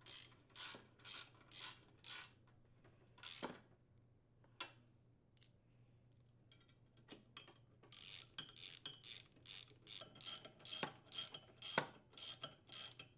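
Ratchet driver clicking in short rasping strokes as it tightens the muffler mounting screws on a Briggs & Stratton small engine. About two strokes a second at first, then a pause with a couple of single clicks, then a quicker run of strokes over the last six seconds.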